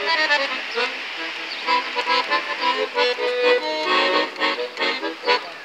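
Red piano accordion played by hand: held reed chords under a melody that moves from note to note.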